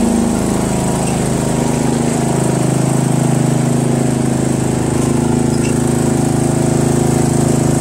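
Craftsman 13.5 hp mid-rear-engine riding mower's engine running steadily while the mower is driven in reverse, with the mower blades not yet engaged.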